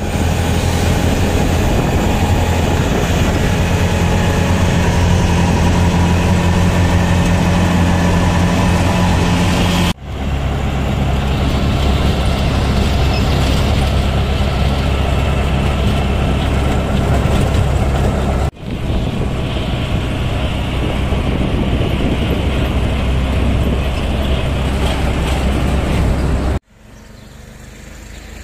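Engine and road noise heard from inside a moving auto-rickshaw in traffic, a steady loud drone in several clips that cut off abruptly. Near the end it gives way to much quieter outdoor street noise.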